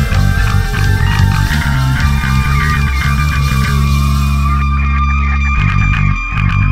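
Stoner-prog rock from a guitar, bass and drums trio. Electric guitar plays over bass guitar, a guitar note is held through the second half, and a low bass note rings for about two seconds in the middle.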